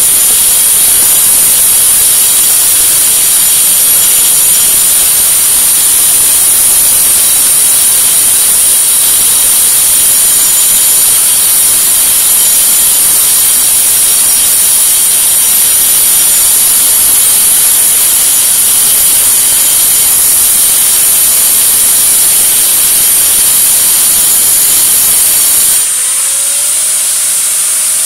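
A high-speed electric power tool grinding into a concrete wall, a loud, steady high whine over harsh grinding noise. About two seconds before the end it comes off the wall and runs free: the grinding drops away and the whine goes on.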